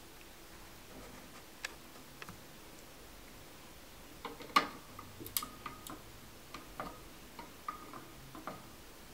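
Small metal clicks and ticks of pliers gripping and bending the solder pins of an old NiCad battery on a circuit board. A few faint clicks come first, then a cluster about halfway through with the loudest click, followed by a run of lighter, slightly ringing ticks.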